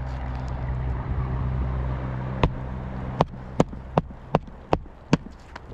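Hammer driving a roofing nail through an asphalt shingle: one blow about two and a half seconds in, then a quick run of six blows, about two and a half a second, the last one light. A steady low hum under the first half fades away.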